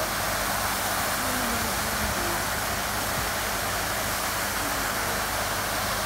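Artificial waterfall of water pouring from the top of a scaffolding tower and splashing into a pool below. It gives a steady, even rush of falling water.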